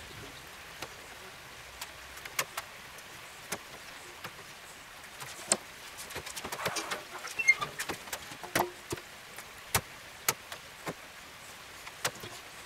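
Scattered sharp clicks and light clinks of handling: bread cubes set into a baking pan, then metal tongs gripping a small steel bowl of melted butter.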